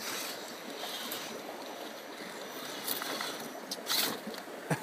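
Electric RC rock crawler (Axial XR10) creeping over rocks: a faint high motor whine that stops near the end, over a steady rushing background. A few sharp knocks follow, the loudest about four seconds in, as the crawler bumps against the stones.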